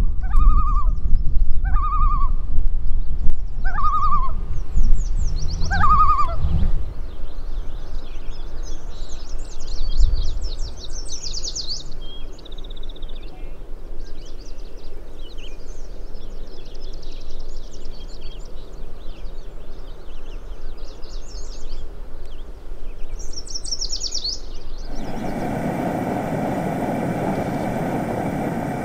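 Woodland birds calling: a short, clear whistled note repeated every second or two, then a stretch of high chirping birdsong. About 25 seconds in, a steady droning hum cuts in abruptly.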